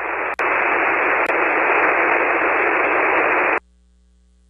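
Ham radio receiver tuned to an empty single-sideband channel on the 40-metre band, putting out steady band-noise hiss with no station answering. A click comes about a third of a second in, and the hiss then runs a little louder. Near the end the hiss cuts off suddenly and drops to near silence for about a second.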